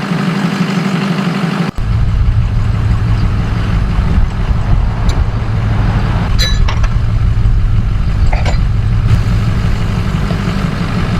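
Vehicle engine idling steadily, the one that has just pulled the stump out on a strap. About two seconds in the sound cuts out for an instant and comes back with a lower engine hum. A couple of light clinks come later on.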